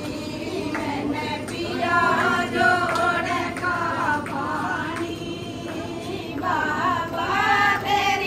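Several voices singing together in short phrases, like a choir or group chant, over steady background noise.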